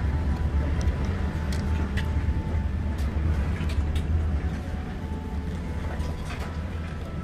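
Steady low drone of a running engine, with a few light clicks scattered through it.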